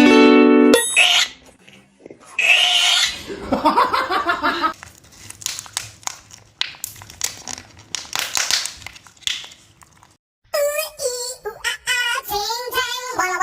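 A string of short animal calls and noises, starting with a held pitched tone. Music with singing takes over from about ten and a half seconds in.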